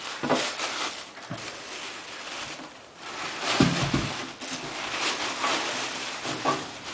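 Loose cage bedding rustling as it is poured and shaken from a plastic mouse cage into a plastic bag, with the cage knocking a few times, the loudest a dull thump about three and a half seconds in.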